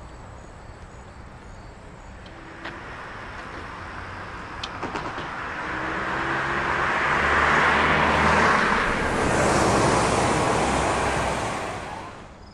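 A car driving past on the street. Its tyre and engine noise swells to a peak about eight seconds in, then fades away.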